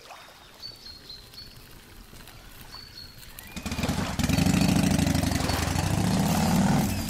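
Birds chirping faintly, then about three and a half seconds in a motor engine starts and runs with a loud, low, pulsing rumble.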